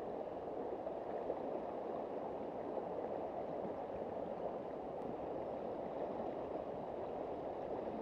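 Fast river current rushing around boulders, a steady, dull rush of water.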